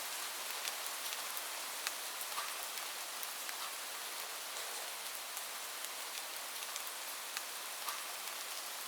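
Steady rain falling, an even hiss with scattered sharp ticks of individual drops hitting a surface.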